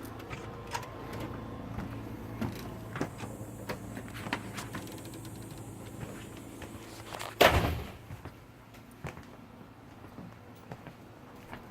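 Predator 2000 inverter generator's small single-cylinder engine running at a steady hum, with scattered light clicks. About seven and a half seconds in a sharp bang sounds, and afterwards the generator is fainter.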